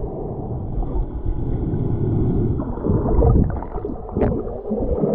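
Muffled rumbling and gurgling of water moving around a camera recorded underwater as a diver swims over the lake bed, swelling about three seconds in, with a few small crackles and knocks.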